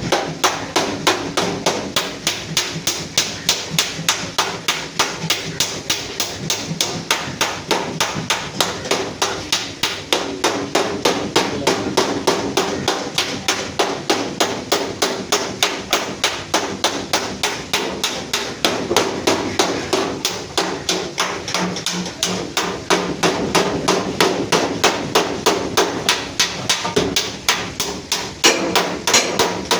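Hammer beating sheet-steel bodywork in quick, steady blows, about four to five a second without pause: panel beating to straighten accident damage on a Suzuki Ravi pickup's front.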